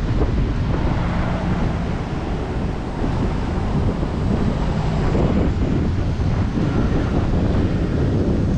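Steady wind noise on the microphone, with surf washing on the beach underneath it.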